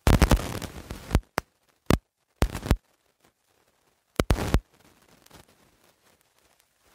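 A loud burst of crackling static lasting about a second, followed by short sharp clicks and a few brief bursts of crackle, then a faint hiss.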